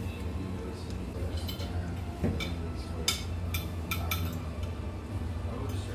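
Forks and spoons clinking against ceramic plates as people eat: a run of sharp clinks through the middle, the loudest about three seconds in, over a steady low hum.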